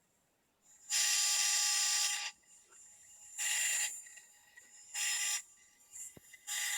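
DJI Phantom 3 Standard camera gimbal buzzing with a hissy whine in four bursts, the first and longest about a second in, then three shorter ones: the abnormal gimbal noise fault.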